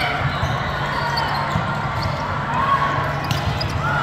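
Busy volleyball hall: scattered thumps of volleyballs being hit and bouncing, with shouting voices and a steady low hum of the large hall.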